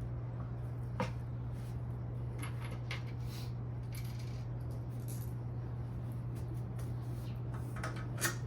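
Light metallic clinks of bolts and small hardware being handled during furniture assembly, a sharp one about a second in, a few around the middle and a loud one near the end, over a steady low hum.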